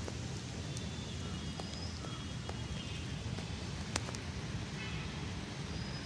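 Steady low outdoor rumble of background noise, with a few faint short high chirps and one sharp click about four seconds in.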